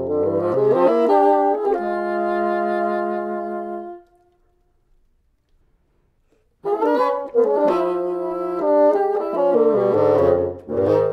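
Two bassoons playing a contemporary classical duet: moving lines that settle into a held two-note chord, which stops about four seconds in. After a silence of about two and a half seconds, both bassoons come back in with quick, rhythmic figures.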